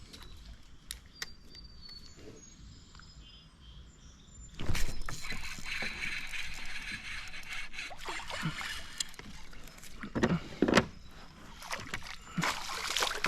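Water splashing and sloshing close by, starting suddenly about four and a half seconds in, with a few sharper splashes near the end.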